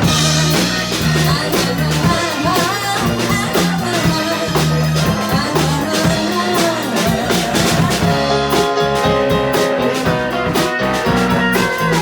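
Live rock band playing an instrumental passage: drum kit with rimshots and a walking bass line under a guitar lead, with sustained chords coming in about two-thirds of the way through.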